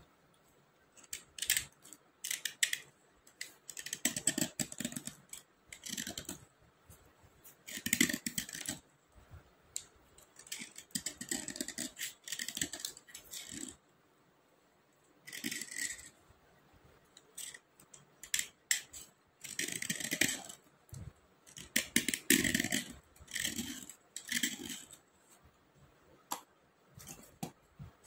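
Dry slate pencil scraped with a small hand tool: quick runs of short rasping strokes broken by pauses, with a few sharp clicks as pencils knock together in the box.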